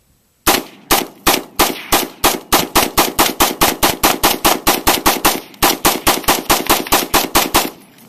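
AR-15 rifle firing rapid semi-automatic shots, about thirty in quick succession at roughly four a second, with a brief pause a little past five seconds in.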